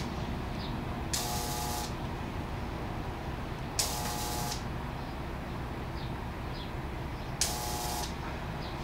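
Tesla coil's spark gap firing in three short bursts, each about half a second long and starting with a sharp crack, spaced a few seconds apart. The primary is tapped at winding number 9.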